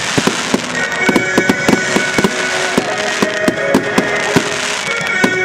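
Fireworks display: aerial shells bursting in a rapid, uneven string of bangs and crackles. Music plays underneath from about a second in.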